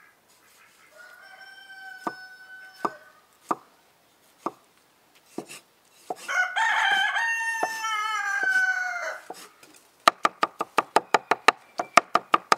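An animal calls twice, the second a long call of about three seconds that falls a little in pitch at its end. Scattered sharp clicks, then a rapid run of clicks at about eight a second near the end.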